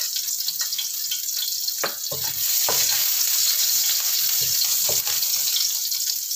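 Chopped shallots sizzling in hot oil in a wok, with a spatula scraping and knocking against the pan now and then as they are stirred.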